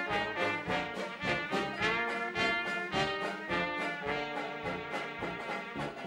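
Small hot jazz band playing in ensemble: trumpet, trombone, a reed player on alto saxophone then clarinet, and bass saxophone together over a steady rhythm beat.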